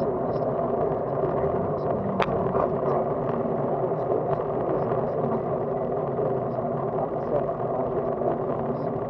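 Steady wind and road rumble on a handlebar-mounted camera as a bicycle rolls over asphalt, with faint scattered ticks and one sharp click about two seconds in.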